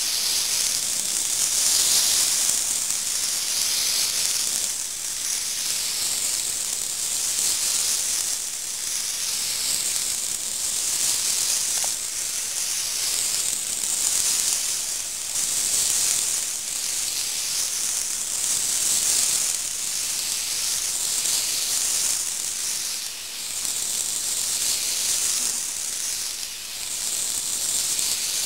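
N-gauge model train running round an oval of track: a steady high hiss from its small motor and wheels on the rails, swelling and fading every few seconds as it passes close by.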